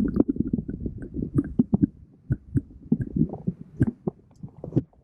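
Irregular soft thumps and scuffing close to the microphone, several a second, with a few sharper clicks: handling noise.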